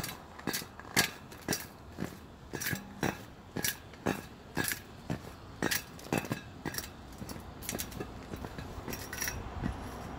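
Footsteps of a person walking on a thin layer of snow and frost over a concrete sidewalk, about two steps a second, growing fainter and less regular in the last few seconds.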